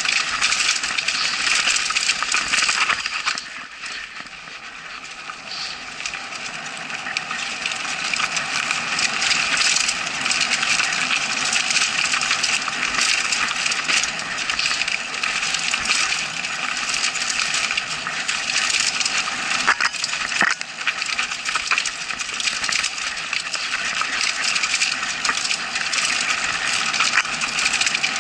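Mountain bike rattling and clattering at speed over a rough dirt trail: a dense, constant metallic chink and clatter of parts jolting over the bumps, with a rushing noise beneath. It goes quieter for about two seconds some three seconds in, then picks up again.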